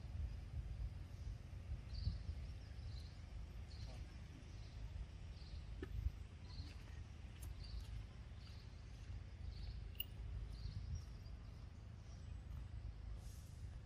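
Faint outdoor ambience: a low, uneven rumble with a faint high chirp repeating about every two-thirds of a second, from a small insect or bird.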